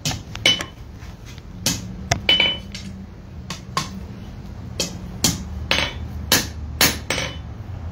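Blacksmith's hand hammer striking a red-hot iron bar on an anvil, about a dozen and a half blows at an uneven pace, curling the bar's end into a closed loop. A steady low hum runs underneath.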